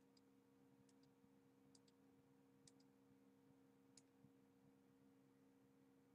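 Near silence: a faint steady electrical hum, with a few faint short clicks during the first four seconds, some in quick pairs.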